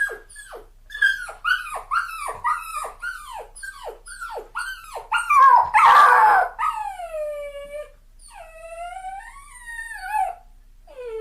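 Puppy crying: a quick run of short, high whimpers, about two a second, each falling in pitch. About six seconds in comes a louder, harsher cry, followed by two long, drawn-out whines and a short whimper near the end.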